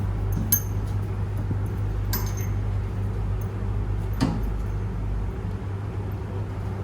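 Metal parts of a heavy-duty cable clamp clinking as it is fitted and tightened on a stranded aluminium conductor: three sharp clicks, about half a second, two seconds and four seconds in, over a steady low hum.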